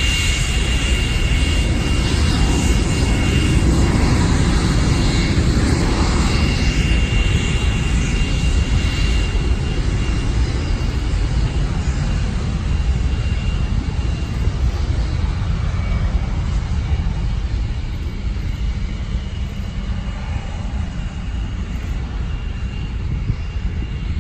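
English Electric Lightning's twin Rolls-Royce Avon turbojets running at taxi power: a steady low rumble with a high whine on top. The sound grows gradually fainter over the second half.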